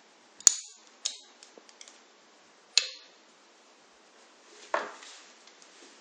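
Sharp clicks of optical-fiber preparation hand tools being worked and set down: two close together near the start, one near three seconds, and a duller knock near the end.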